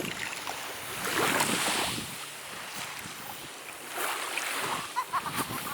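Sea waves washing onto a steep beach, two swells of surf a few seconds apart, with wind on the microphone.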